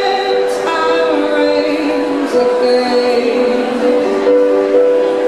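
A woman singing over sustained chords played on a Roland RD-700SX stage piano.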